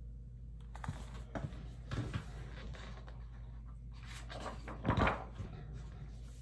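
Pages of a picture book being turned and handled: several short rustles and soft knocks, the loudest about five seconds in.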